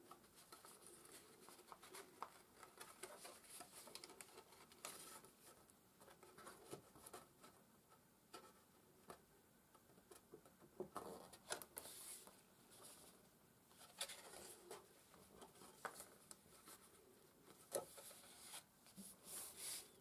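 Faint, scattered rustling and scraping of heavy cardstock as hands handle a paper flap, slide it into place and smooth it down, with short pauses between.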